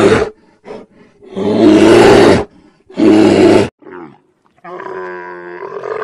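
A polar bear's loud, rough roars: the end of one, then two more about a second apart. Near the end, a dromedary camel's quieter, long, drawn-out grunting groan.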